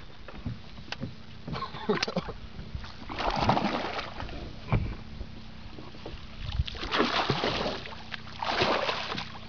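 A large hooked fish thrashing at the water's surface beside a boat as it is netted, splashing in several bursts.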